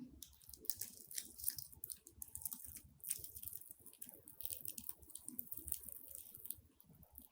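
Crunchy slime being squeezed and worked by hand, giving a dense run of small crackles and pops that eases off near the end.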